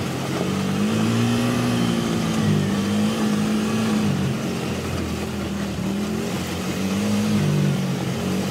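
ATV engine running, its pitch rising and falling several times as the throttle opens and eases.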